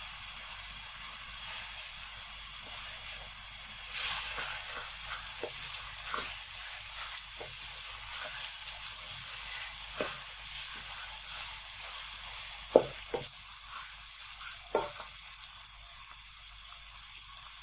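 Minced chicken keema sizzling in oil in a kadhai on a low flame while it is stirred, a utensil clicking and scraping against the pan now and then. The sizzle swells about four seconds in. This is the browning (bhuna) stage, with the keema nearly done.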